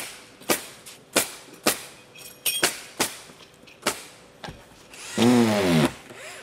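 Roofing fastener work on a flat roof deck: sharp separate knocks, about two a second, as fastener plates are driven down through the insulation. Near the end comes a loud pitched sound lasting under a second that wavers in pitch.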